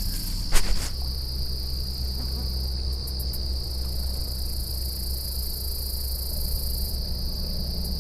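Insect chorus, a steady high-pitched trill, over a steady low rumble, with one sharp click about half a second in.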